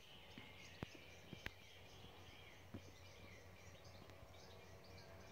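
Faint birdsong, with a few soft clicks.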